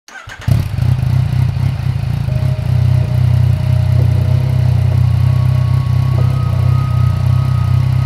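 Yamaha MT-09's three-cylinder engine, breathing through an Akrapovic Racing Line titanium exhaust, fires up about half a second in and then runs at a steady idle with an even low pulse.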